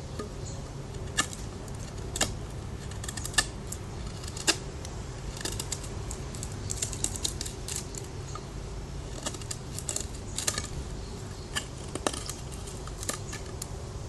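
Spyderco Paramilitary 2 folding knife at work on some material: a run of sharp, irregular clicks and snaps, some single and some in quick clusters, over a steady low hum.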